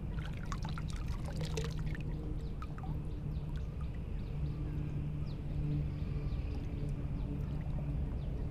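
Water sloshing and trickling around a wading angler, over a steady low hum, with a few short chirps in the first two seconds.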